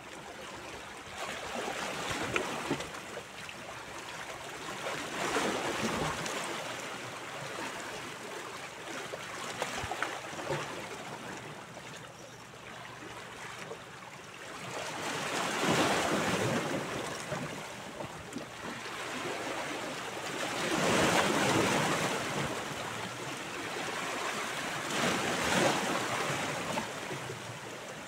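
Small sea waves washing against shoreline rocks, the wash swelling and fading about every five seconds.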